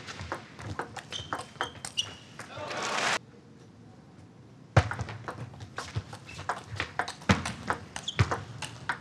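Table tennis rally: a ping-pong ball clicking quickly and irregularly off bats and table. Hall noise swells near the end of the first rally and is cut off abruptly. After a short lull, another rally of ball strikes begins with a loud hit.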